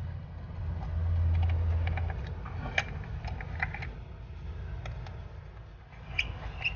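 Small plastic clicks and taps of PVC connectors and pipe being handled and fitted against a utility box, scattered and irregular, over a low steady hum that grows louder for about a second near the start.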